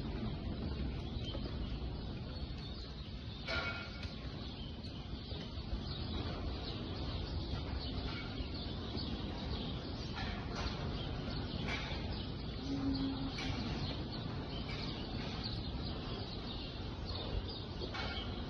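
Dairy barn ambience: a steady background noise with scattered short bird chirps and one brief low sound about two-thirds of the way through.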